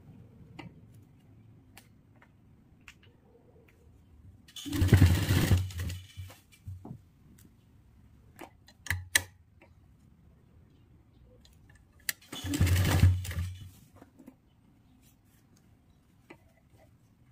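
Electric sewing machine running in two short bursts of stitching, each about a second and a half, the first about five seconds in and the second near thirteen seconds. Between the runs it is quiet apart from light clicks and fabric handling.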